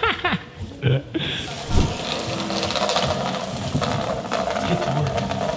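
A small child's bicycle with training wheels rolling across a hard tiled floor, giving a steady mechanical rattle that starts about a second and a half in.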